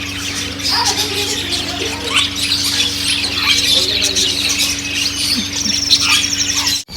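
Many caged birds chirping and calling at once, a dense overlapping chatter with a fast trill near the end. A steady low hum runs underneath, and the sound drops out briefly just before the end.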